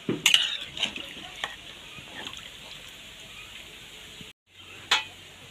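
A steel ladle stirs thick curry in a metal kadai, scraping and knocking against the pan. Several strokes come in the first second and a half, and one more knock comes near the end.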